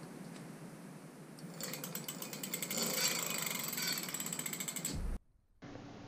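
Ebikeling 1200 W direct-drive hub motor spinning the wheel under power on its first test, with a rapid ratcheting click from the freewheel. It starts about a second and a half in, grows louder, and cuts off near the end.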